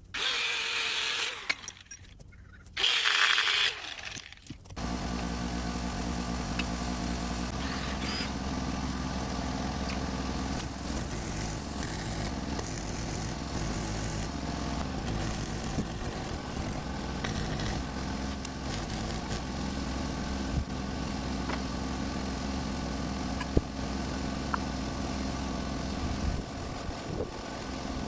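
Two short, loud hissing bursts, then a motor starts and runs steadily with a constant low hum, easing off near the end.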